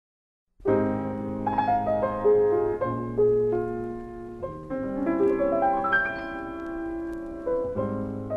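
Solo piano playing slow, held chords that change every second or so, starting about half a second in after silence.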